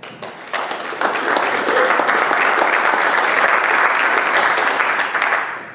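Audience applauding, building over the first second, holding steady, and dying away near the end.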